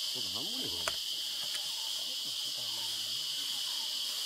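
Steady high-pitched drone of insects chirring in tall grass, with one sharp click a little under a second in.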